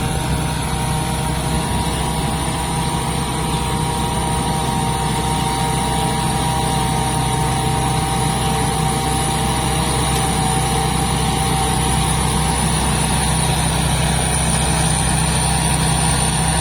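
Rice combine harvester's diesel engine running steadily, with a steady high-pitched whine over the low engine drone.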